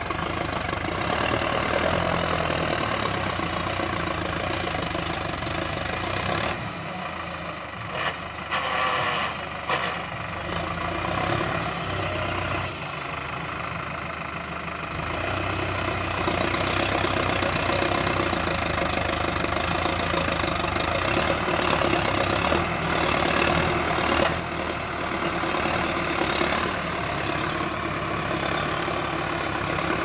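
Sonalika 750 tractor's diesel engine running steadily under load as it pulls a tine cultivator through the soil. The sound drops somewhat for several seconds about a quarter of the way in, then comes back up.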